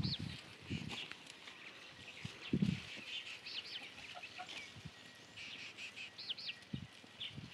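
Birds calling: short, arched high chirps repeated every second or two, and a few separate low clucking calls, typical of free-ranging village chickens.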